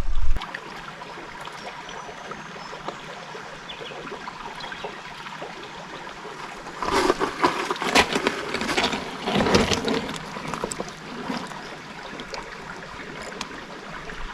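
Creek water running steadily over rocks. About seven seconds in comes a few seconds of louder irregular splashing and knocking.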